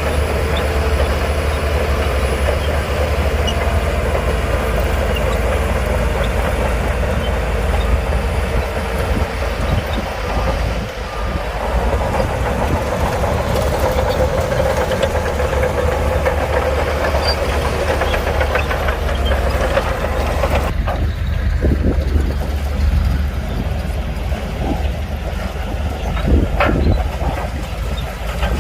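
Heavy diesel earthmoving machinery running steadily, a deep engine rumble with a held whine over it. About twenty seconds in, the sound changes abruptly and turns duller, and a few sharp knocks come near the end.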